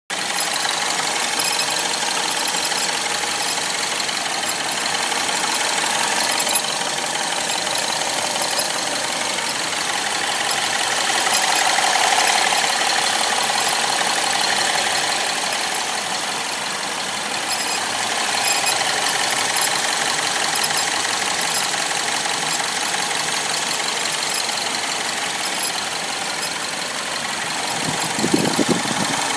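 BMW 116i F20 engine running, with a faint steady whistle over the engine noise that swells and fades about a third of the way in; the whistle is the fault being recorded. A short louder low burst comes near the end.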